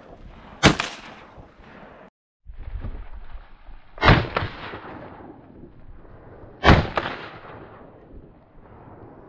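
12-gauge semi-automatic shotgun firing: one loud blast about a second in, each shot followed by a ringing tail. After a brief dropout the shots are replayed as two more blasts about two and a half seconds apart, duller than the first.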